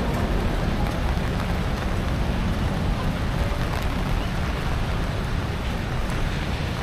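Steady outdoor city ambience in typhoon rain: an even hiss of rain on wet paving over a constant low rumble of traffic.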